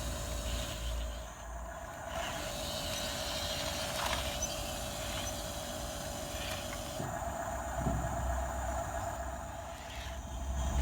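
Small electric motors of radio-controlled construction models running with a steady whine.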